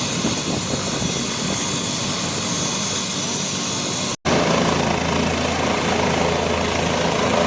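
Helicopter running, a steady rush of engine and rotor noise. About four seconds in the sound cuts out for an instant and comes back slightly louder, with a steady low hum.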